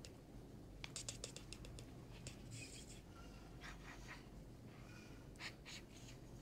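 Faint scratching and soft clicks from a Chihuahua puppy mouthing a finger and shuffling on a fabric blanket, in short scattered bursts.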